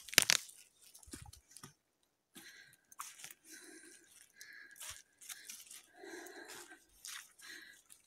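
Footsteps crunching through dry fallen leaves and twigs on a forest floor, an irregular run of steps with a loud sharp crunch just after the start.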